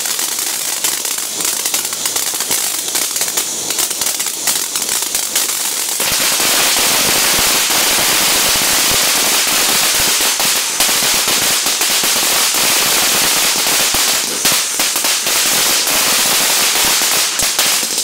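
Ground fountain firework spraying sparks: a continuous hiss shot through with dense crackling, which grows louder and fuller about six seconds in and stays that way.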